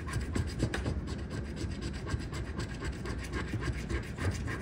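A coin scratching the coating off a paper scratch-off lottery ticket in quick, repeated strokes.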